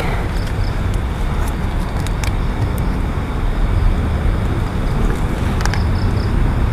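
Steady low rumble of wind noise with a few faint clicks.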